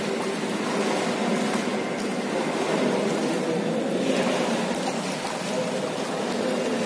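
Steady echoing ambience of an indoor swimming pool: water lapping and splashing against the edge, with a constant hiss.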